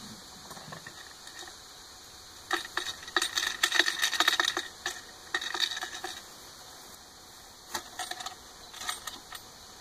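Wooden beehive frames and top bars clattering and knocking as they are handled and set into the hive: a dense run of sharp clicks about two to six seconds in, and a few more near the end.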